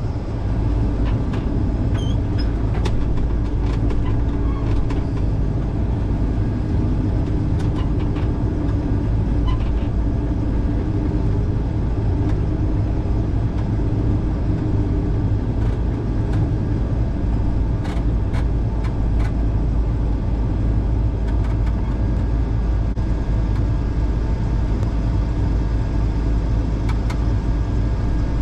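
Combine engine running steadily at a constant level while the machine waits, with a few brief clicks.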